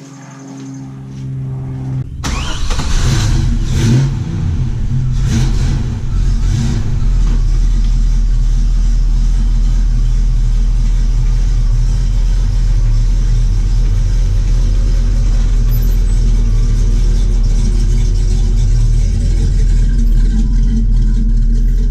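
Chevrolet El Camino's engine starting about two seconds in and revving a few times, then running steadily with a deep rumble.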